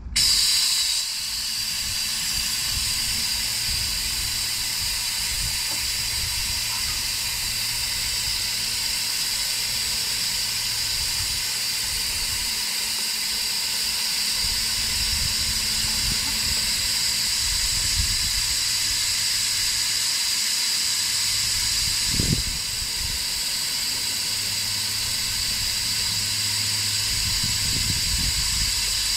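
Steady, loud hiss of rushing air that starts suddenly and holds without a break, with a brief low thump about twenty-two seconds in.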